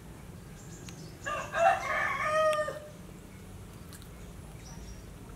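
A rooster crowing once, about a second in, lasting around a second and a half with a drawn-out falling end.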